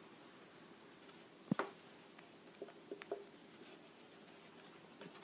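A cat playing with a teaser wand on a carpeted floor by a cardboard box: one dull thump about a second and a half in, then a few light taps and knocks.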